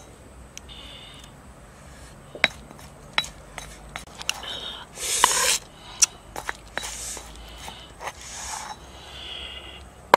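Stone pestle scraping wet pounded chili paste around a stone mortar and into a coconut shell: several rough scrapes, the loudest about five seconds in, among sharp taps of the pestle against stone and shell.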